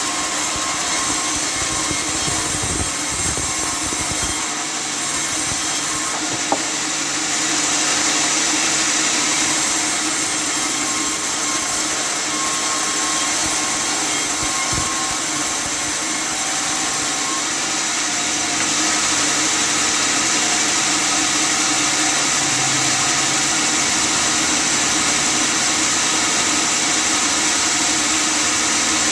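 Custom-made table sawmill running and sawing through wood: a steady, loud mix of motor and saw noise, with one sharp click about six and a half seconds in.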